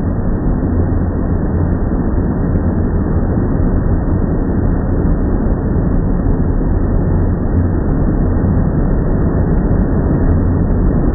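Car wash machinery running, a loud steady low rumble.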